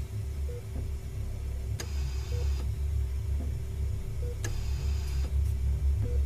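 Horror film sound design: a low, unevenly pulsing drone under a steady hum, with a sharp click every two to three seconds, slowly swelling in loudness.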